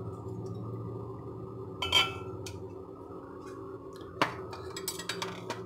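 Metal spoon clinking against dishes: a ringing clink about two seconds in, a sharp click just after four seconds and a few lighter taps near the end, over a steady low hum.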